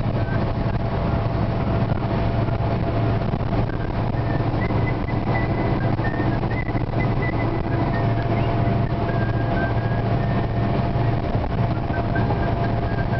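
Car driving at highway speed, heard from inside the cabin: a steady engine drone and road noise, with a thin steady whine above it.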